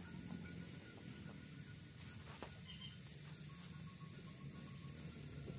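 Faint cricket chirping, a steady high-pitched pulse repeating between two and three times a second over a low background hum.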